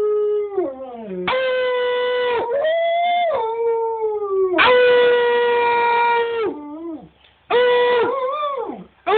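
Husky–wolf hybrid howling: a run of long held howls, several ending in a downward slide. After a short pause about seven seconds in, the howls turn shorter and waver up and down in pitch.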